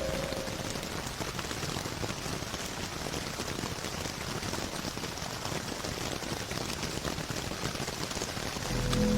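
Steady rain patter from a rain sound effect, a dense even hiss of drops with no music over it. A low, slowed ambient music pad swells back in near the end.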